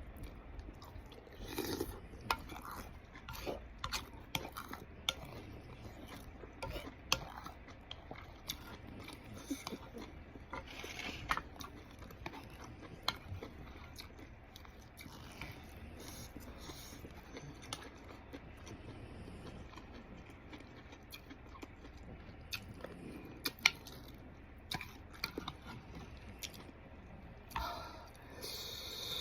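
Close-miked chewing and mouth sounds of someone eating soupy tofu puffs and noodles: scattered soft clicks and smacks over a faint background, with a louder noisy sound near the end.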